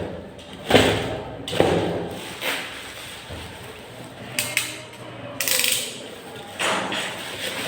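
Handling of a welding cable, electrode holder and their packaging: a string of sudden knocks and clatters, with a longer crinkling rustle a little past halfway.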